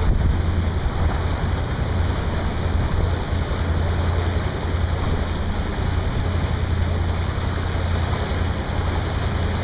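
Steady wind buffeting the microphone over water rushing and lapping around a small boat, with a constant low rumble underneath.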